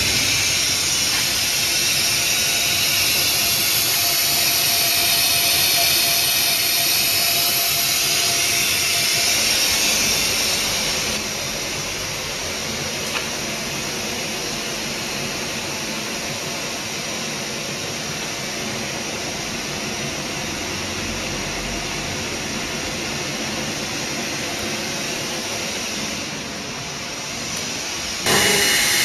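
Steady rushing machinery noise with a strong hiss, running without a break; it drops a little in level about a third of the way through and comes back up sharply near the end.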